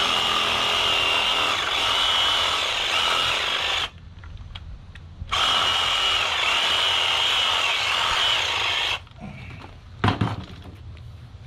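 Reciprocating saw (Sawzall) cutting through a pig's rib bones, with a steady high motor whine. It runs for about four seconds, stops briefly, then runs again for about four seconds. A single sharp knock comes near the end.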